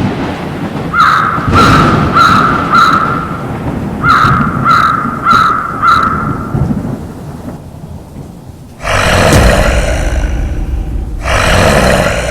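Horror sound effect of a crow cawing, eight harsh calls in two runs of four at about one and a half calls a second, over a low rumble. After a short lull come two loud claps of thunder, the first about two seconds long and the second shorter, near the end.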